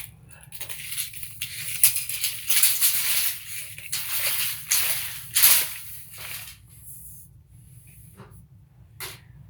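Steel tape measure blade sliding and rattling in and out of its case in a series of irregular hissy bursts, which die away after about six seconds.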